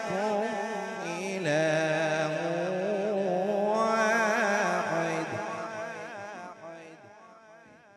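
A man's voice reciting the Quran in long, melodic, drawn-out phrases through a microphone and PA system, the pitch wavering in ornamented turns. It trails away over the last few seconds.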